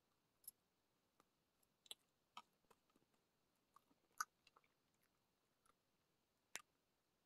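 Faint, scattered clicks and soft chewing sounds from a person eating cake with a spoon. The loudest clicks come about four seconds in and again near the end.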